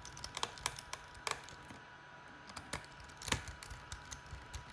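Irregular light clicks and ticks from a small screwdriver and the DJI Mini 2's plastic shell being handled as screws are driven into the shell, with one sharper click about three seconds in.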